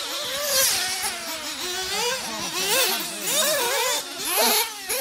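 Several radio-controlled off-road racing buggies running around a dirt track. Their motors rev up and down in pitch, and the overlapping whines rise and fall as they accelerate and brake.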